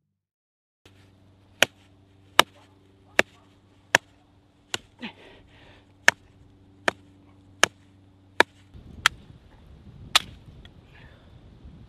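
A hand tool striking down repeatedly in a steady rhythm, about ten sharp blows roughly three-quarters of a second apart, over a low steady drone. Near the end the drone gives way to a rougher low rumble, with two more blows.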